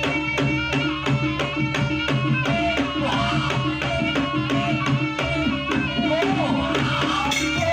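Live Javanese jaranan gamelan music: a hand drum beating a fast, even rhythm of about four or five strikes a second over sustained gong and metal-percussion tones, with a wavering melodic line above.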